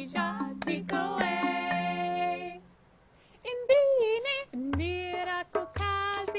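A woman's voice sung in several layered parts, in Shona, over steady notes from a wooden xylophone played with mallets. The music stops for about half a second a little after two and a half seconds in. It then starts again as a sung call and answer, with hand-drum strokes and a beaded gourd shaker joining about a second later.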